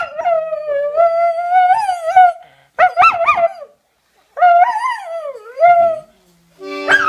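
Dog howling: three drawn-out, wavering howls, the second short and warbling, the last sliding down in pitch.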